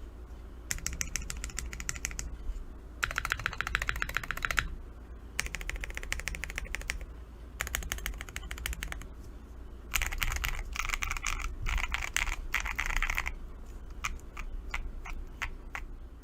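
Typing on a mechanical keyboard fitted with Oshid Amber keycaps: bursts of fast keystrokes a second or two long with short pauses between, then slower single key presses near the end.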